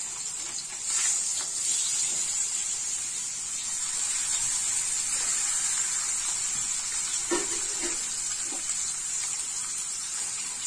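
Rohu fish steaks sizzling as they are laid into a hot kadai with a thin film of oil: a steady hiss that gets louder about a second in as more pieces go into the pan.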